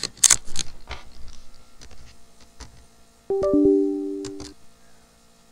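A few sharp clicks, then about three seconds in a short electronic chime of two or three notes: the Windows device-connected sound as a USB flash drive is plugged in.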